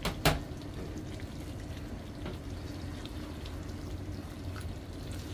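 Chicken afritada simmering in a frying pan just after water is added to the drying sauce, sizzling and bubbling steadily with small crackles throughout. Two sharp knocks right at the start.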